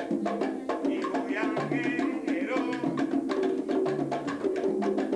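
Live Cuban rumba: conga drums and a sharp wooden click keeping a steady rhythm, with voices singing over them.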